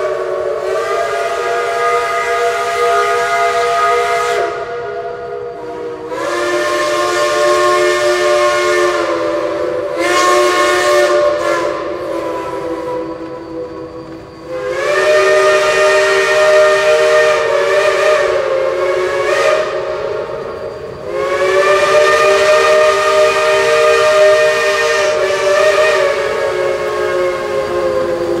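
Whistles of several Shay geared steam locomotives blowing together in about five long blasts, the later ones the longest, with several pitches sounding at once.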